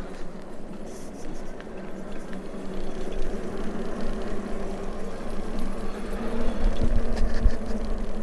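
Fat-tyre e-bike being ridden over rough ground: a steady motor hum under tyre rolling noise, which gets louder about three seconds in, with a couple of low bumps near the end.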